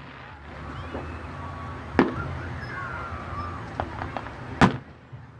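Aerial fireworks exploding: two sharp bangs about two and a half seconds apart, the second the loudest, with a couple of smaller pops between them.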